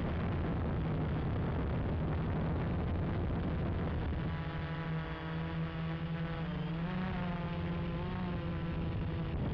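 Gaui 330X quadcopter's electric motors and propellers buzzing in flight, the pitch wavering up and down as the throttle changes, over a steady low rumble.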